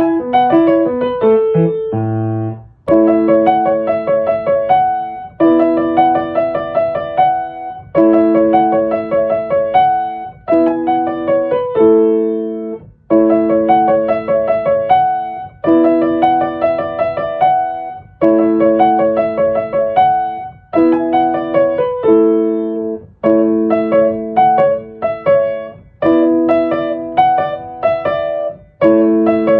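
Background music: a piano piece of repeated chords, each struck and let ring for about two and a half seconds.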